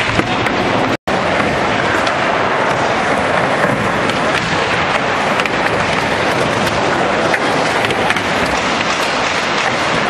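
A steady, loud din of noise with small clicks and knocks scattered through it, as a skateboard rides back and forth on a wooden mini ramp. The sound cuts out completely for an instant about a second in.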